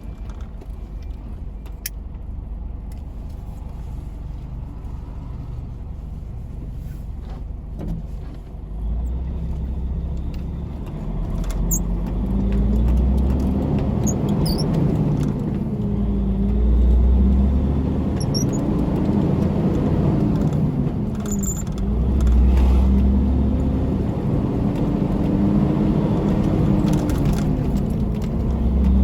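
Tractor-trailer truck's diesel engine running steadily, then pulling harder and climbing through the gears: its pitch rises and drops back at each shift, several times, growing louder.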